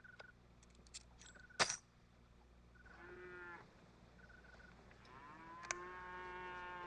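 Cattle lowing in the background: a short moo about three seconds in and a longer, steady one from about five seconds on. A faint high chirp repeats every second and a half or so, and there is one sharp click about a second and a half in.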